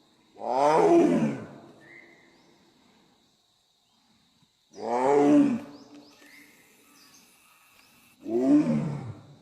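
Royal Bengal tiger roaring three times, each roar about a second long and falling in pitch, spaced roughly four seconds apart.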